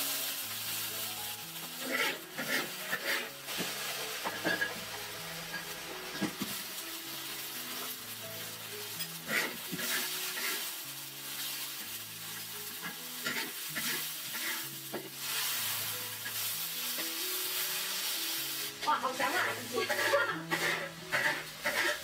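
Food sizzling in hot oil in a wok during a stir-fry of onion, yellow pepper, ginger and plums, with repeated strokes of the spatula tossing the food. Soft background music plays underneath.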